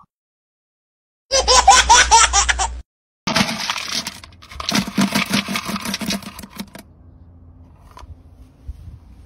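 A short loud burst of fast repeating sound about a second in, then dry dog kibble rattling and clattering as a plastic scoop digs into a bin of it, fading to a few faint clicks.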